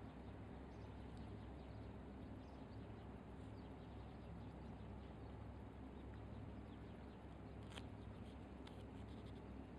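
Quiet outdoor ambience: a steady low rumble with a few faint, short high ticks, the clearest about eight seconds in.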